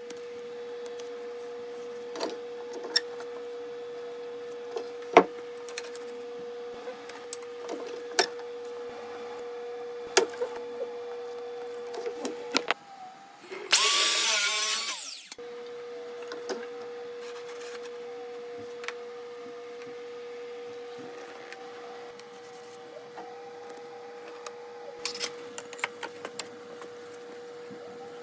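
Carpentry work on molding: scattered taps, knocks and clicks of wood and tools being handled over a steady hum, with one short, loud burst from a power tool about halfway through.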